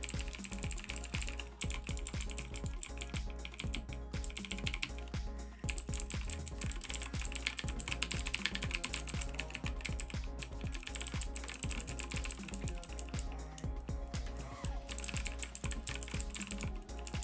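Continuous fast typing on a VAVA gaming keyboard with clicky Kailh Blue mechanical switches: a dense run of sharp clicks from the regular letter keys only, with no space bar or enter.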